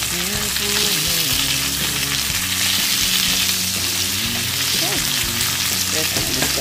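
Salmon fillets sizzling steadily in hot oil in a grill pan, with a spatula moving them in the pan.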